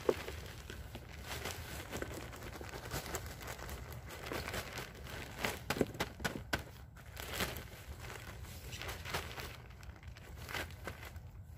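Plastic bag of garden soil crinkling and rustling in irregular bursts as it is shaken and emptied.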